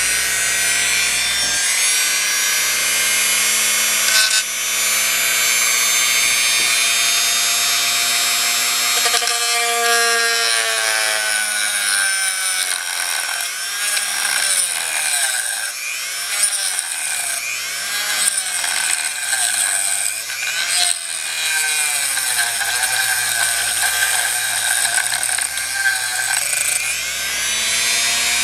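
Dremel rotary tool cutting slits in an RC truck's battery frame: a loud, high-pitched whine that starts suddenly and sags and recovers in pitch over and over as the cutting wheel bites.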